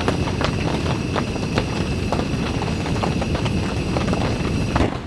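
Rain falling on the tent fabric: a dense, irregular patter of drop taps over a steady low rush.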